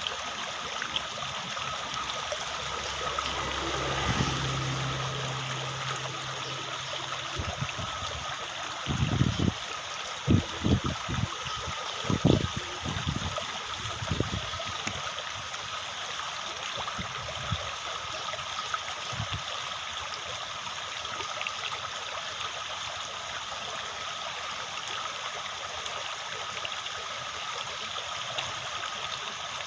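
Steady running water, like a small stream, with a brief low hum a few seconds in and a cluster of dull thumps about nine to fourteen seconds in.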